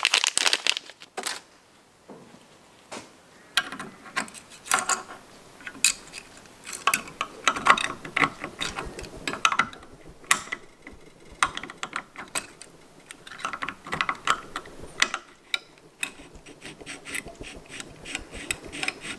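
Small metal parts of a Ford Model A distributor's breaker plate being handled and fitted by hand while a spring goes on: irregular light clicks, clinks and brief scraping.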